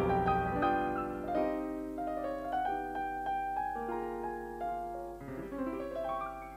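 Solo piano playing a slow melodic passage with notes held and ringing, getting gradually quieter toward the end.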